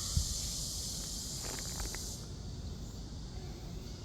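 Cicadas buzzing in a steady, high-pitched chorus that cuts off abruptly about halfway through. A low thump sounds just after the start.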